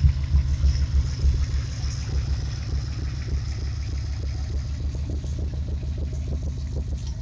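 Ford Mustang engine running at idle with an uneven, pulsing low rumble. This is the rough idle of an engine that the owner is sure has a vacuum leak under the intake.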